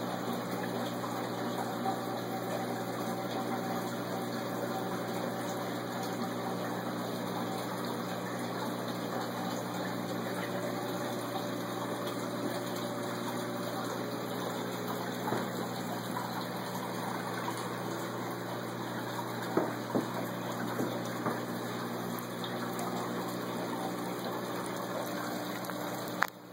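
Steady rush of circulating water from a saltwater stock-tank aquarium's pumps and return plumbing, with a steady low pump hum underneath. A few faint knocks come about two-thirds of the way through.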